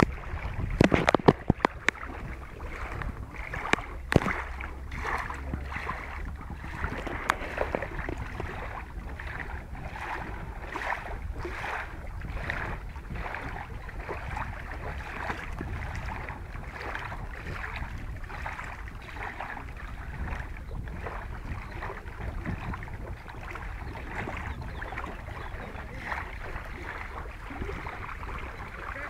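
Outdoor wind rumbling on the microphone, with small waves lapping against a concrete bank in soft swishes about once a second. A few sharp clicks come about a second in and again around four seconds.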